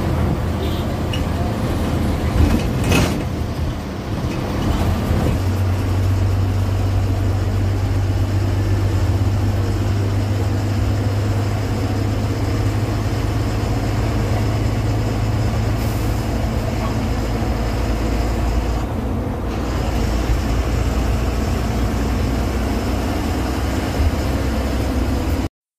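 Bus engine running steadily while the bus drives, with road and cabin noise heard from the front of the passenger cabin. The engine note grows deeper and stronger about five seconds in, and there is a short knock about three seconds in.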